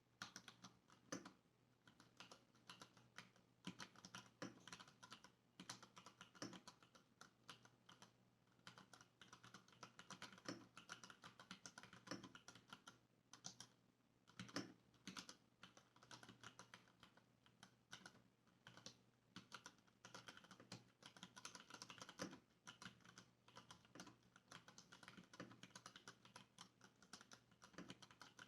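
Typing on a Varmilo mechanical keyboard with stock, unmodified Cherry MX Brown switches: quiet, rapid, irregular key clicks, with a few louder keystrokes scattered through.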